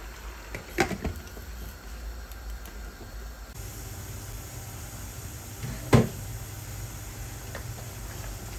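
Glass pot lid clinking on the rim of an aluminium cooking pot as it is lifted off, a few quick clicks about a second in, then one sharper, louder knock about six seconds in. Under it runs a low, steady hiss from the pot of chicken simmering.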